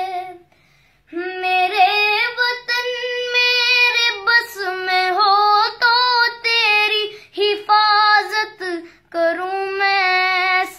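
A single high voice singing a slow song in Urdu with long, held notes, and no instruments heard. The singing breaks off briefly about a second in.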